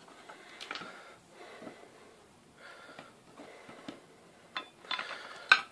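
Hands handling a tuna tin, a jar lid and cotton stove rope: soft rubbing noises every couple of seconds and small clicks, with one sharp metal tap near the end.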